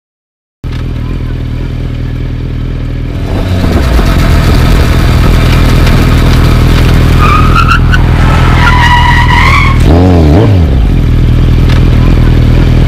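Highway traffic passing close by with engines running, cutting in abruptly about half a second in and growing louder about three seconds in. Tires squeal between about seven and ten seconds in, and an engine revs past near ten seconds in.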